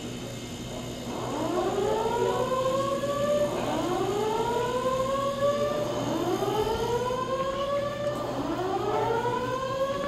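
Simplex voice evacuation system's slow whoop alert tone, sounding from building speakers for an evacuation. It starts about a second in, and each whoop rises in pitch and levels off, repeating about every two and a quarter seconds.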